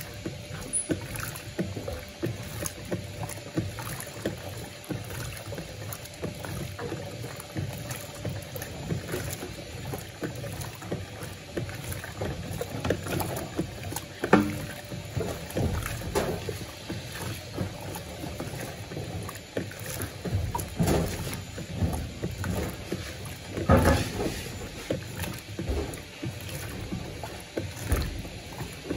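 Electrolux Turbo Compacta 7 kg (LTC07) washing machine agitating a load of rugs in low water: water sloshing and churning, with irregular louder splashes, two of them standing out about halfway through and near the end.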